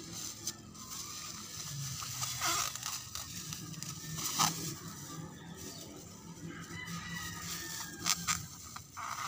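Clear plastic bag rustling and crinkling as it is pulled and wrapped around a grafted papaya stem, with a few sharper crackles.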